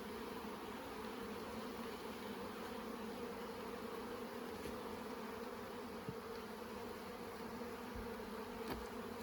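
Honeybees buzzing in an open hive as the frames are inspected: a steady, even hum with a light click near the end.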